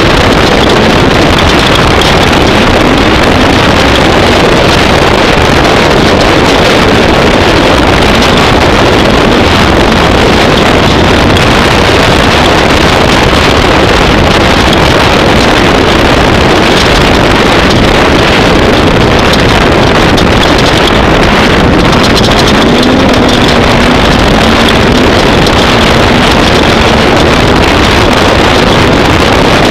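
Off-road race vehicle's engine running hard and steady at speed, its pitch wavering, under a loud rush of wind and road noise on the microphone.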